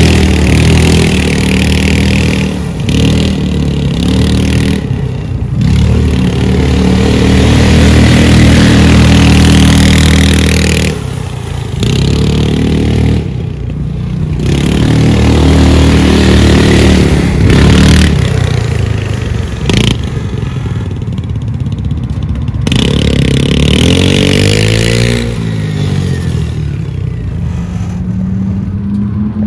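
Trailmaster Cheetah 300 EX go-kart's fuel-injected, water-cooled engine running as the kart is driven, revving up and easing off, with several abrupt breaks in the sound. Near the end the engine pitch dips and climbs again.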